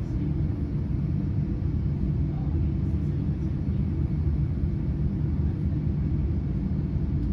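Steady low rumble of cabin noise inside a Boeing 787-9 airliner, its engines running, with no marked rise or fall.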